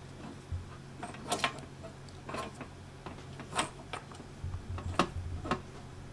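Handling sounds of wires and a brushless ESC on a metal tray as heat-shrink tubing is pushed over fresh solder joints: scattered sharp ticks and clicks, roughly one a second, over a low steady hum.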